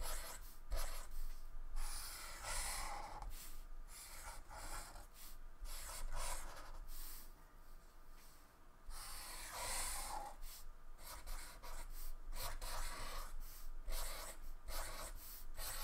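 Black felt-tip marker drawing small shapes on paper: short, irregular scratching strokes with brief pauses between them.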